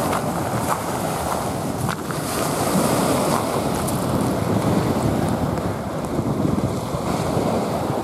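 Small sea waves breaking and washing up a sand-and-shell beach in steady surf, with wind buffeting the microphone.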